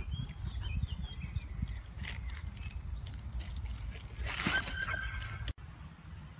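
Outdoor ambience: low rumbling noise with scattered light knocks and a brief high-pitched call about four seconds in. The sound drops abruptly to a quieter background near the end.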